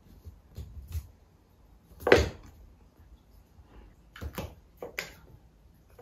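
Domestic cat playing with a small ball on a wooden floor: a scatter of short scuffs and thuds from its paws and body, the loudest about two seconds in.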